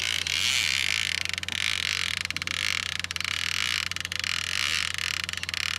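Fishing reel's drag buzzing as a hooked tambaqui runs and pulls line off the spool: a fast, continuous ratchet of clicks that starts suddenly and holds steady.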